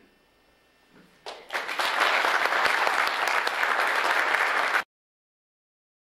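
An audience applauding, starting about a second and a half in and cut off abruptly near the end.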